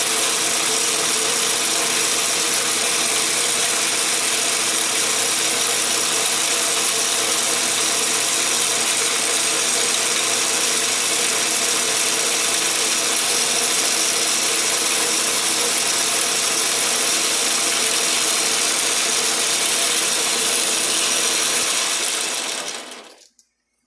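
Atlas 10-inch lathe running under power with a carbide-insert face mill taking a light facing cut on round steel stock: a steady, loud mechanical clatter of gears with a constant whine. Near the end it dies away quickly as the machine stops.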